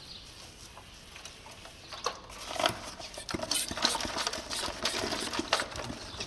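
Quick clicks, knocks and scraping of hard objects handled against each other, starting about two seconds in after a quiet start.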